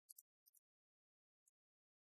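Near silence, with a few faint, very high ticks.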